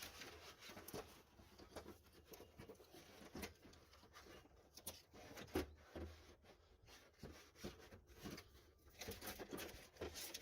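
Faint, irregular scraping and clicking of a window regulator assembly, its metal rails and cable, being maneuvered out through the access opening inside a truck door.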